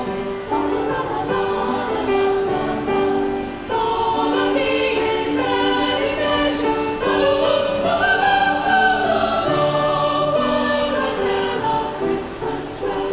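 A chamber choir singing a Christmas number, several voice parts holding sustained chords together.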